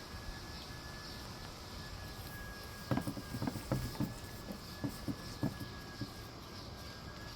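A quick run of light knocks and taps, about a dozen over two and a half seconds, starting about three seconds in, over a faint steady high-pitched whine.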